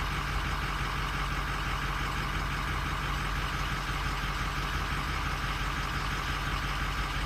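Ford 6.0 Power Stroke V8 diesel idling steadily.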